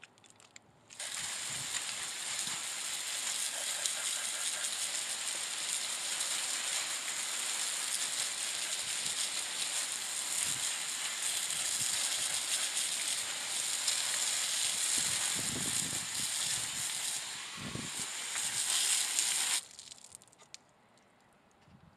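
Garden hose spray nozzle jetting water onto crystals and rocks on a wire-mesh sifting screen. It makes a steady hiss of spray spattering on stone and mesh, which starts about a second in and stops abruptly near the end.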